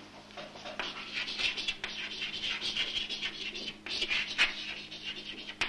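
Chalk scratching on a blackboard as a word is handwritten in cursive, a run of quick strokes with short pauses between letters.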